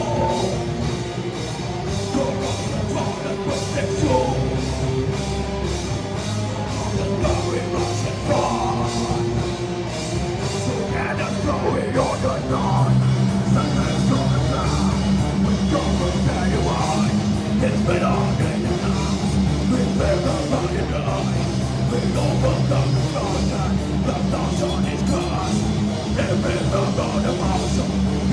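Live band playing loud heavy rock music, with guitar, bass and fast, dense drumming.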